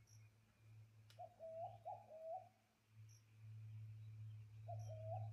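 Wild birds calling: a low-pitched phrase of about four notes about a second in, repeated near the end, with faint short high chirps. A steady low hum runs underneath.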